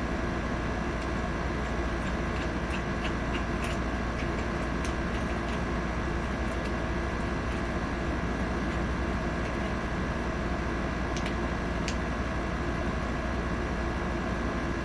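Steady, even droning hum, with a few faint light clicks about two to four seconds in and again near eleven to twelve seconds.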